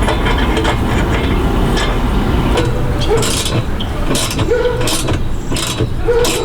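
Hand socket ratchet clicking in repeated strokes as the bolts joining an exhaust mid-pipe to the front pipe are tightened, the strokes coming about twice a second in the second half.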